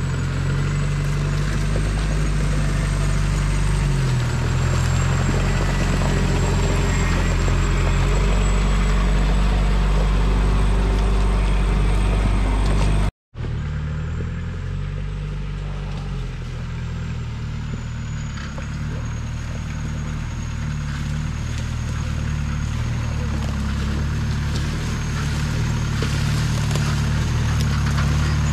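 Off-road jeep's engine running at low revs as it crawls over rough dirt, its note shifting a few seconds in. The sound drops out for an instant about thirteen seconds in, then the engine is heard again.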